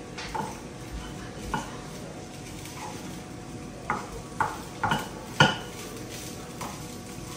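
A cooking spoon scraping and clinking against a small kadai as rice is stirred over the gas flame: about nine irregular knocks, the loudest about five and a half seconds in.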